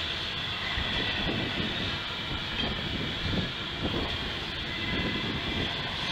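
Double-stack container freight train rolling past: a steady rumble and hiss of wheels on rail, with irregular clanks from the passing cars.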